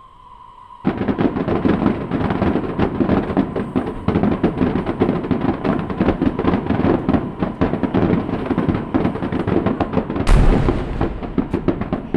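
Fireworks going off in a dense, rapid barrage of bangs and crackling that starts suddenly about a second in. A bigger, sharper burst stands out near the end.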